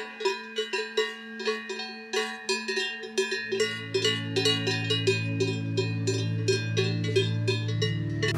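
Cowbells clanging in a quick, fairly even rhythm, several ringing strokes a second. About three seconds in, a steady low hum joins under them.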